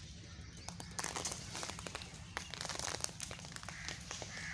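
Dry crackling and crunching: an irregular rapid run of short sharp clicks, densest in the middle.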